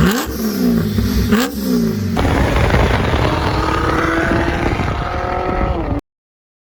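Volvo 4.4 V8 engine being revved: the pitch rises and falls twice in quick blips, then the engine pulls with a slowly rising pitch as it accelerates, and the sound cuts off abruptly near the end.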